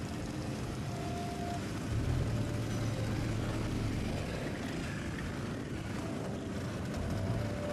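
Several motorcycle engines running as a line of bikes rides past one after another, a steady low engine hum that swells as individual bikes go by, about two seconds in and again near the end.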